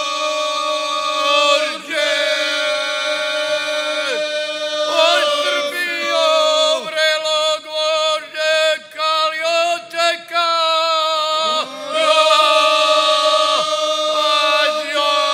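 A group of folk singers, mostly men's voices, singing a traditional Serbian folk song unaccompanied, holding long drawn-out notes together. In the middle, the singing breaks into shorter syllables before returning to long held notes.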